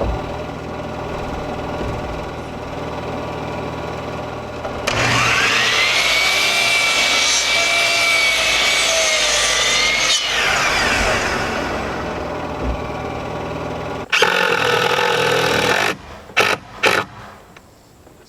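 A steady hum, then an electric power saw starts about five seconds in, whines up to speed, runs about five seconds through a cut in poplar board and winds down with a falling whine. Near the end a power drill runs in one longer burst and a few short bursts, driving screws.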